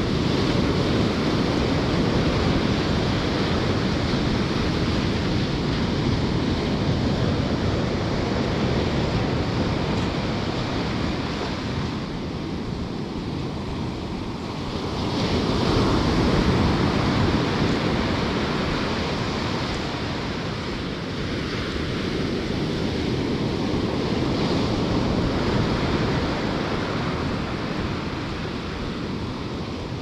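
Ocean surf washing up a sand beach, a steady rush of breaking and receding waves that swells and eases, loudest about halfway through, with wind rumbling on the microphone.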